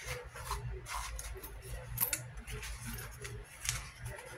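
Irregular rustling and light clicking of things being handled close to the microphone, over a steady low hum.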